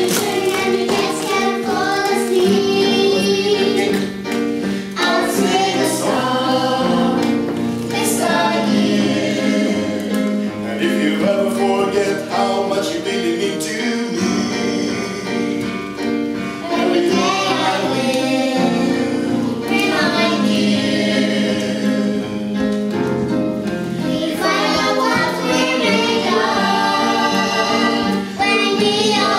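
A small family group of children and adults singing a song together into a microphone, reading from lyric sheets, over a steady instrumental accompaniment.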